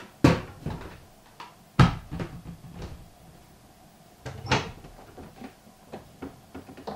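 A series of sharp clunks and knocks: two loud ones about a quarter second and about two seconds in, a softer, longer one about four and a half seconds in, and a few light ticks between them.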